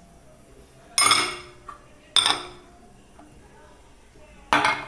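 Three sharp clinks of glass kitchenware being handled and set down on a countertop, each ringing briefly: about a second in, just after two seconds, and near the end.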